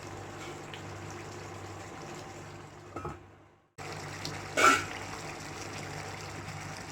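Covered pan of chicken and potato gravy simmering: a steady bubbling hiss with a faint low hum. It fades out a little after three seconds and comes back abruptly, and a single short clatter follows about a second later.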